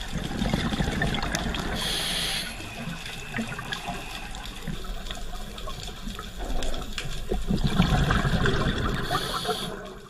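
Underwater sound of a scuba diver's breathing: a bubbling rush of exhaled air twice, each time ending in a short hiss from the regulator.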